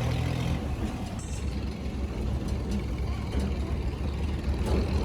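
An engine running steadily with a low hum under a haze of mechanical noise.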